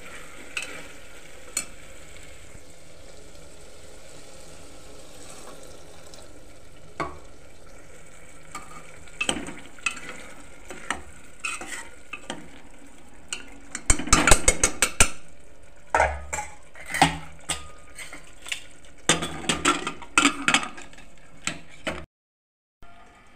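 A spoon stirring and scraping potatoes and black-eyed peas (cholai) in a pressure cooker pot while the masala sizzles in oil. There is a quick run of rapid scraping about two-thirds of the way through. The sound cuts out briefly near the end.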